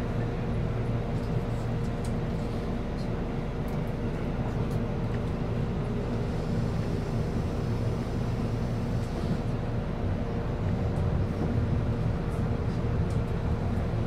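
Keihan limited express train running between stations, heard from inside the passenger car: a steady rumble with a low hum and a few faint ticks.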